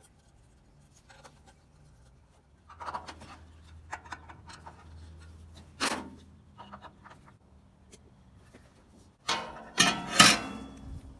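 Metal parts of a gas grill side burner being handled: scattered clicks and knocks, then a louder burst of metal clattering near the end as the burner head is set into its pan.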